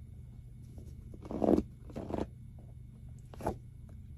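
Handling of a deck of paper oracle cards and rustling of a fleece blanket: three brief rustles, the last a short crisp one near the end, over a low steady hum.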